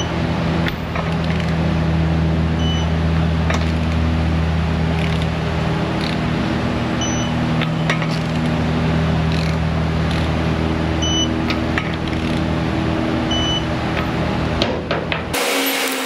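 A steady, low-pitched mechanical hum with a few short, faint high beeps over it. It cuts off abruptly near the end.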